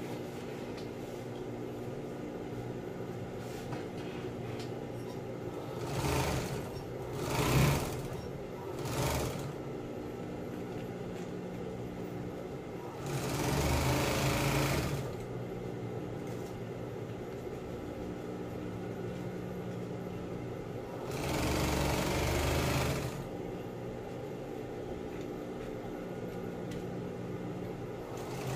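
Industrial sewing machine with a steady motor hum, stitching tape binding onto a blue vinyl sheet in three short runs: a few seconds in, around the middle, and about two-thirds through.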